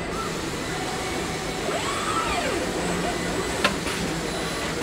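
Car-body welding line machinery running steadily, with an industrial robot's servo motor whining once about two seconds in, rising and then falling in pitch as the arm moves. A single sharp click comes near the end.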